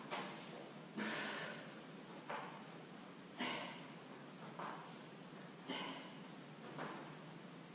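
A woman breathing hard in time with sit-ups: a forceful breath out about every two and a half seconds, with a softer breath in between each one.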